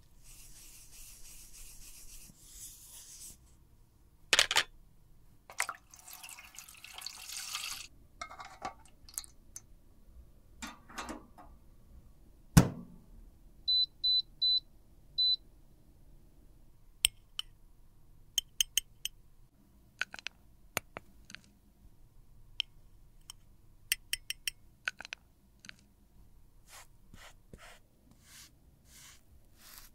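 Close-up handling of cosmetics and small tools: scraping and rubbing, scattered light clicks and taps, and one sharp knock. Midway, four short high-pitched electronic beeps sound in quick succession.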